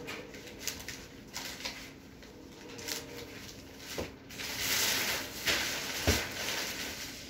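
Thin plastic sheeting rustling and crinkling as it is handled, with small scattered clicks, growing loudest about four and a half seconds in. Two sharp knocks, about four and six seconds in, the second one heavier.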